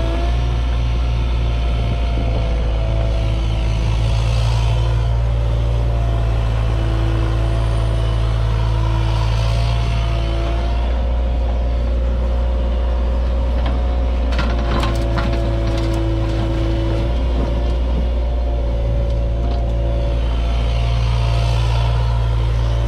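Cat 303.5 mini excavator running steadily while digging, its diesel engine under load with a tone that comes and goes as the hydraulics are worked. A short cluster of clicks partway through.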